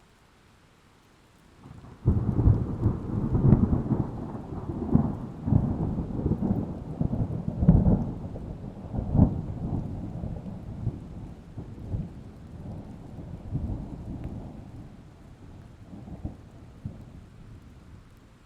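A thunderclap breaks in suddenly about two seconds in, then rolls on as a long low rumble with repeated cracks, gradually fading away.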